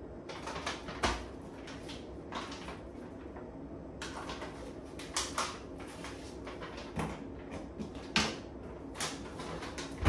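Scattered knocks and clinks of kitchen items and dishwasher racks being handled, single sharp knocks a second or more apart, ending with the dishwasher door shutting with a loud knock.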